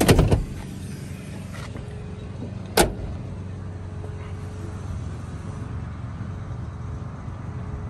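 A thump as the vinyl bench-seat back of a classic Ford pickup is pushed back into place, then a single sharp knock about three seconds in. A steady low rumble runs underneath.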